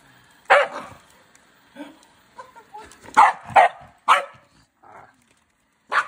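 Scottish Terrier barking at a robot vacuum in sharp, irregular barks: one about half a second in, a quick run of three around three to four seconds in, and another at the end, with a few softer barks between.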